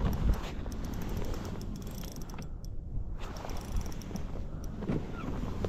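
Shimano Sahara 2500 spinning reel clicking in quick ticks while a striped bass is fought on a bent rod, the ticking pausing briefly about midway, over a low steady rumble.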